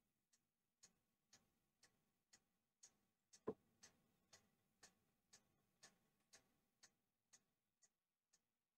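Near silence except for faint, even ticking, about two ticks a second, with one louder knock about three and a half seconds in.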